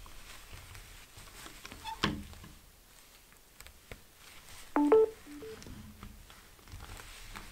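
Smartphone being seated in a phone-holder stand by leather-gloved hands: soft handling rustles and a sharp click about two seconds in, then a short electronic chime of a few tones about five seconds in, the phone signalling that its charger has connected.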